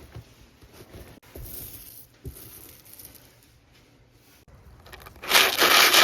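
A container of rusty steel slingshot balls soaking in vinegar being handled, with a few faint knocks, then a loud rushing, clattering burst about five seconds in that lasts just over a second.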